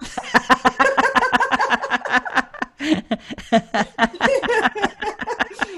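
Women laughing together over a video call: a long run of quick laughs.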